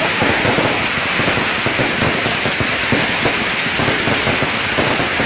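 Fireworks going off in a dense, unbroken stream of rapid cracks and bangs.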